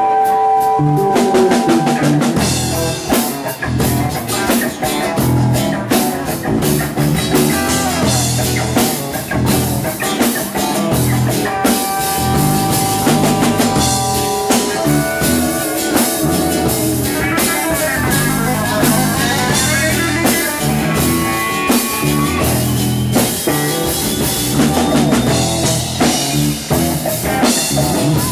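Live rock music: an electric guitar played through an amplifier over a drum kit keeping a steady beat. About two thirds of the way through, the guitar notes slide down and back up.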